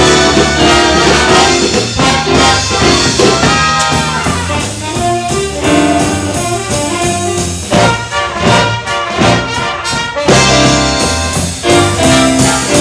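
Live big band playing, with saxophones and brass horns over a steady beat.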